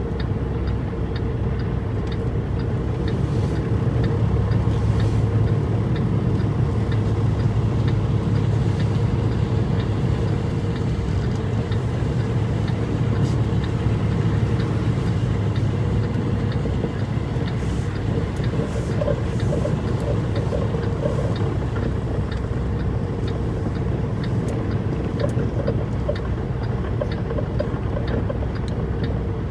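A truck's engine running steadily, a constant low hum, with a faint, regular ticking over it.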